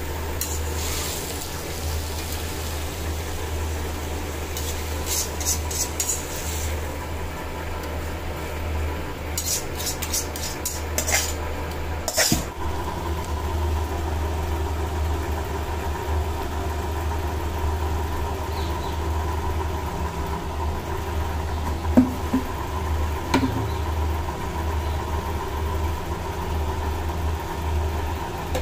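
Metal kitchen utensils clinking and scraping against a steel bowl and an iron kadai in two short runs, with two light knocks later, over a steady low hum.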